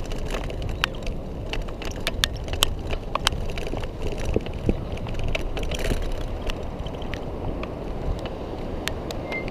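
Electric scooter riding over paving: a steady low rumble of wheels and wind on the camera, with scattered sharp clicks and rattles.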